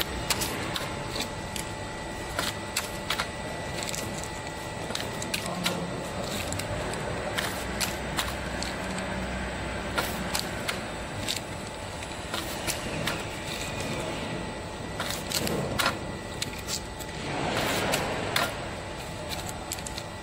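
Steady factory machinery noise with a faint steady whine, crossed by frequent irregular sharp clicks, while filled plastic stick sachets are set on and lifted off a steel-topped electronic scale.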